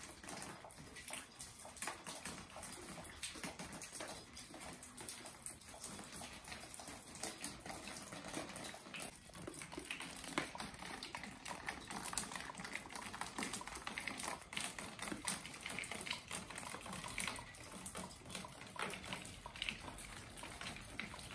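Footsteps crunching over debris and rubble, a dense run of faint, irregular clicks and crackles.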